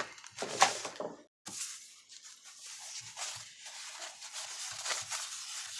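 Thin foam packing sheet rustling and crinkling as it is unrolled by hand, a steady papery rustle with small crackles from about a second and a half in.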